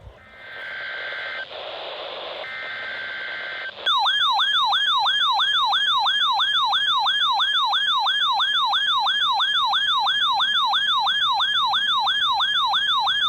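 Weather radio hiss with a few faint steady tones, then about four seconds in a loud warbling siren alarm starts, about three rising sweeps a second. It is the radio's warning alarm, set off automatically by the station's weekly test tone.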